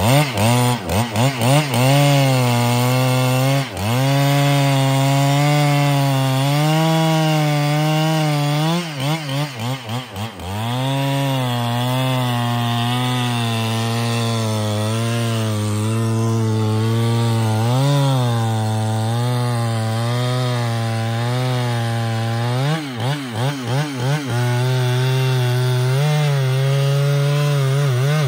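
Husqvarna 395XP, a large 94 cc two-stroke chainsaw, running at full throttle with its chain buried in a thick trembesi trunk, its pitch sagging under the load of the cut. Runs of quick throttle blips come near the start, about a third of the way through, and again about three-quarters through.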